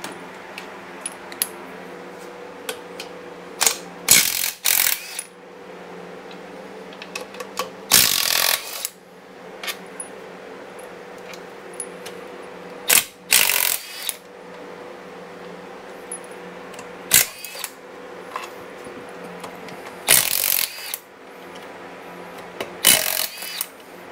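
Cordless impact wrench in about five short bursts a few seconds apart, spinning out bolts on a motorcycle's primary drive, with small metal clicks of sockets and parts between bursts.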